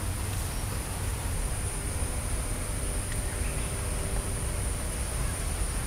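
Steady, high-pitched drone of insects, crickets or cicadas, over a low rumble.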